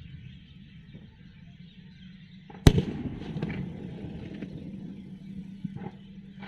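A close thunderclap: one sharp crack a little under three seconds in, followed by a rumble that slowly fades.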